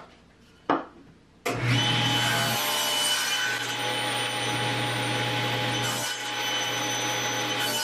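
Table saw switched on about one and a half seconds in and running steadily with a constant hum, while a plywood bracket piece is pushed through the blade on a crosscut sled to cut an angled edge off it.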